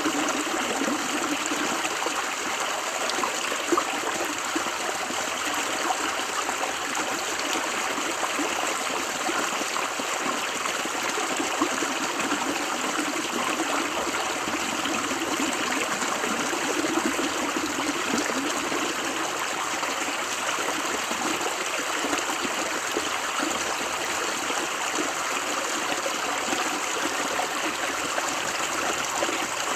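River water running steadily over rocks, a continuous rushing and babbling with small splashes flickering through it.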